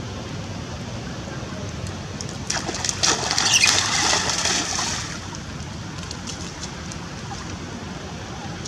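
Steady rain falling on pooled water and wet stone. About two and a half seconds in, a louder spell of splashing lasts about two seconds, then the even patter goes on.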